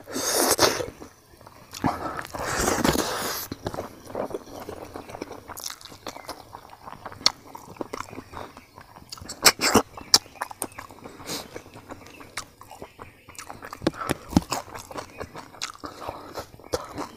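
Close-up chewing and crunching of mouthfuls of rice with crispy fried grasshoppers, with many short, sharp clicks and smacks.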